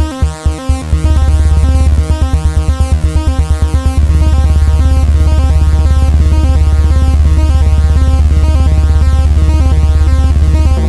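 Electronic jam of an Arturia Minibrute 2S synth sequence over Arturia Drumbrute Impact drum machine beats. About a second in, the low drum beat breaks into a rapid roll that speeds up into an almost continuous pulsing build by about four seconds in. The regular beat returns at the very end.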